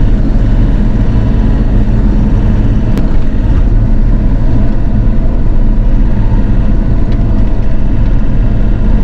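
Bobcat E42 mini excavator's diesel engine running steadily at working speed while the machine pushes dirt into a pile.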